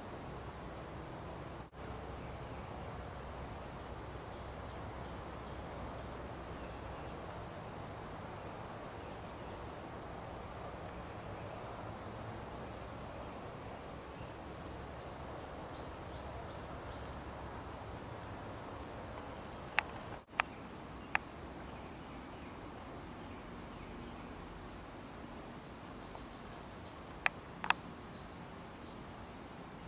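Steady chorus of insects in the undergrowth, with a high continuous buzz. Three sharp clicks come about two-thirds of the way in and two more near the end.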